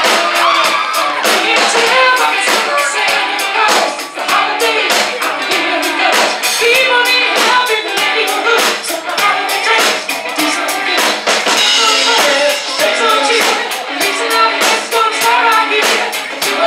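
Live band playing a song: a singer over a steady drum-kit beat with tambourine.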